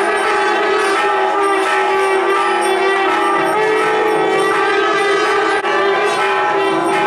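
Nadaswaram, a South Indian double-reed pipe, playing a melody over a steady drone, with thavil drum strokes underneath.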